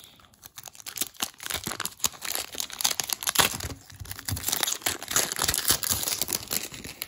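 Shiny wrapper of a 1998 Collector's Choice baseball card pack crinkling and tearing as it is pulled open by hand: a dense run of sharp crackles that starts about a second in.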